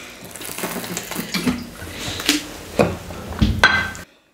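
Ceramic plates being handled and set down on a table: a run of knocks and clinks, the loudest near the end, before the sound cuts off suddenly.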